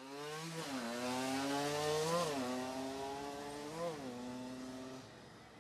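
A motor vehicle engine accelerating, its pitch climbing and then dropping sharply about two seconds in and again near four seconds, as with gear changes, before it fades out about five seconds in.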